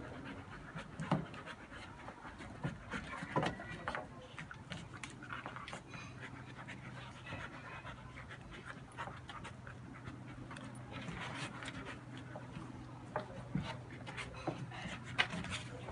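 Two dogs play-wrestling, with panting and scattered sharp clicks and scuffs from their mouths and paws, over a steady low hum.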